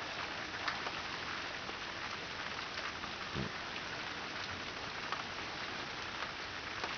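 Steady rain falling during a thunderstorm: an even hiss with faint scattered drop ticks.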